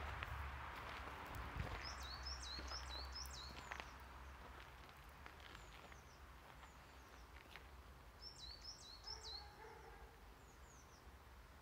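A small songbird sings two short phrases of rapid, repeated high chirps, one about two seconds in and one about eight seconds in, with fainter scattered bird calls between. Under them runs a faint low rumble.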